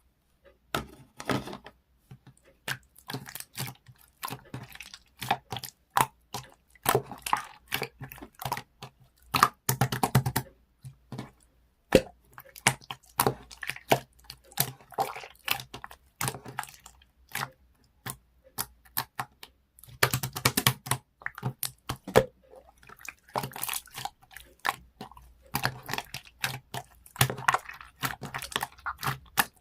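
Hands squishing and stretching marbled slime, making a dense, irregular run of sticky clicks and small pops.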